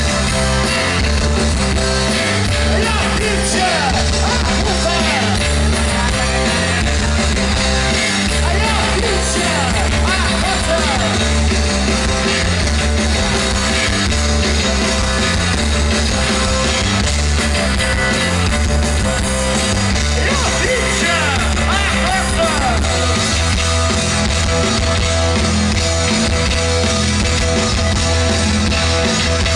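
Post-punk rock band playing live through an outdoor festival PA, heard from within the crowd: bass guitar and drum kit drive a steady rock groove, with a male lead voice singing and shouting over it at times.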